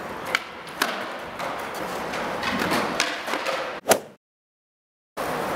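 Skateboard on a concrete skatepark floor: wheels rolling, with several sharp clacks of the board, the loudest just before four seconds in. The sound then cuts off suddenly.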